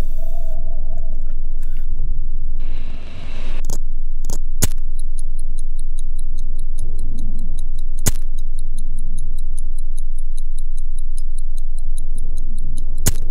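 Dark film sound design: a heavy low rumbling drone with a few sharp hits, a brief hissing whoosh about three seconds in, and even clock-like ticking from about five seconds in.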